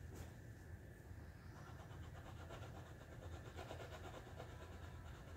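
Faint room tone: a low steady hum with no distinct events.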